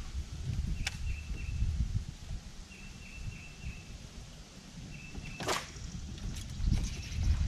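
A bass fishing rod swished hard through the air once, about five and a half seconds in, in a sharp sweep that sets the hook. A faint, repeated high chirping runs underneath.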